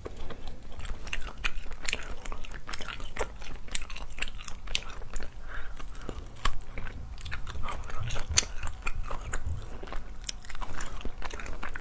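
Boiled crayfish shells being cracked, bitten and chewed: irregular sharp crunches and clicks, with wet mouth sounds in between.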